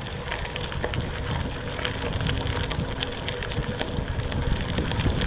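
Bicycle tyres rolling over a dirt trail, a steady rough noise with many small clicks of grit and stones, under low wind rumble on the microphone.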